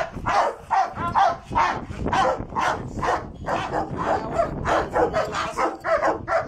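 A dog barking steadily and rhythmically, about two to three barks a second.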